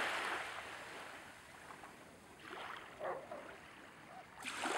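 Small waves lapping and washing in shallow water at a beach. The wash fades at the start, swells again in the middle and surges briefly near the end.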